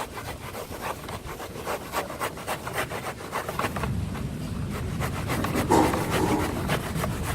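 A cloth rag rubbing back and forth along a motorcycle drive chain, wiping off kerosene and mud in quick repeated scraping strokes. A low rumble builds up under it in the second half.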